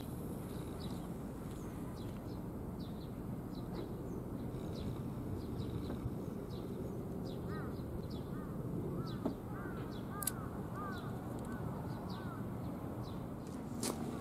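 Birds calling over a steady low background noise: short high chirps scattered throughout, and a run of repeated arched calls in the middle.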